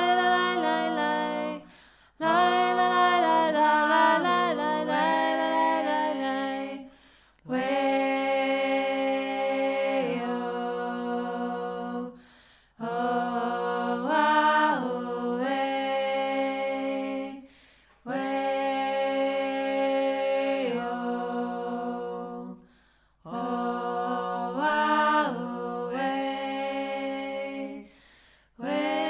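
Unaccompanied singing in slow phrases of held notes, each about five seconds long, with short breaks between them.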